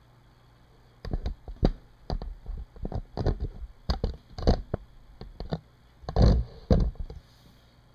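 Irregular knocks, taps and rubbing from hands handling things close to the microphone. They start about a second in, are loudest around six seconds, and stop near the end.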